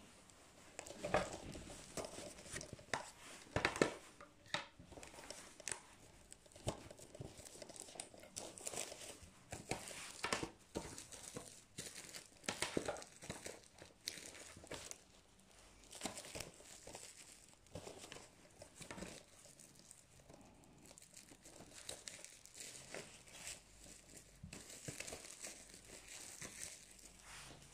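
Plastic shrink wrap crinkling and tearing as it is peeled off a Blu-ray case, in irregular crackles that come and go.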